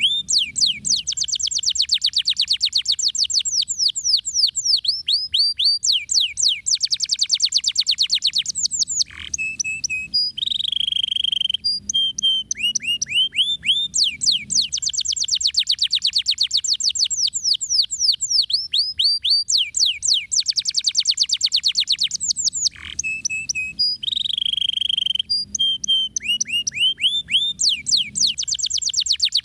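Domestic canary singing a long, fast rolling song of dense trills made of quick rising and falling notes. It breaks off twice for a moment, each time followed by a short held note, before the rolling trills start again.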